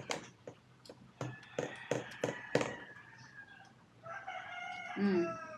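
A rooster crowing in long held calls, with a few sharp clicks and taps over the first call.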